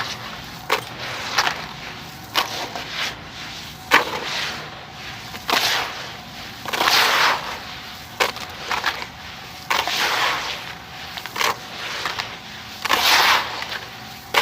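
Sand-cement pieces being crushed and crumbled: a dozen or so crisp cracks and crunches at irregular intervals, a few drawn out into longer gritty crumbles.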